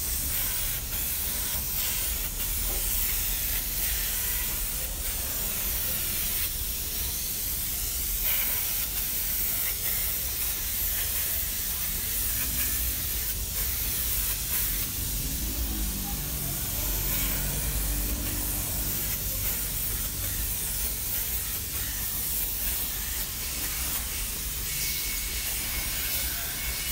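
Gravity-feed paint spray gun hissing steadily as compressed air atomises paint, with a low rumble underneath.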